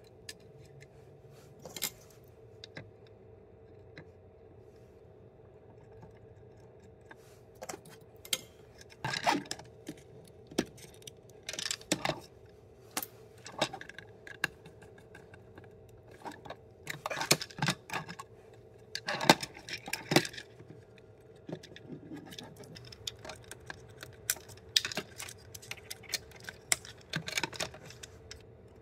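Scattered small clicks, taps and rustles of hands handling wires, connectors and a plastic project box while wiring a controller board, in irregular clusters, over a faint steady hum.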